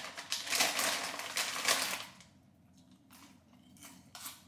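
Crackling and crunching from Oreo-flavoured popcorn being taken from its packet and eaten. A dense crackle lasts about two seconds, then a few scattered crunches follow.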